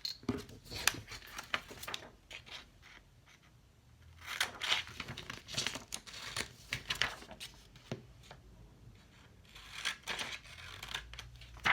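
Scissors cutting out a paper shape: irregular runs of snips with paper rustling, pausing briefly about a third of the way in.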